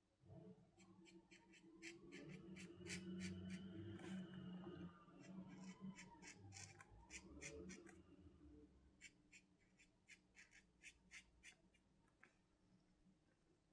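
Black felt-tip pen drawing on paper: faint, short scratching strokes in quick groups. A low hum swells and fades during the first half.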